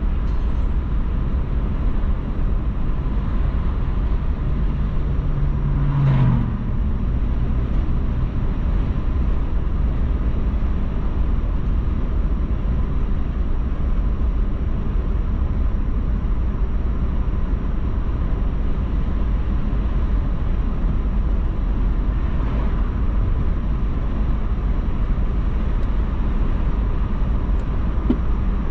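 Steady road and engine noise of a car driving, heaviest at the low end, with a brief louder knock about six seconds in.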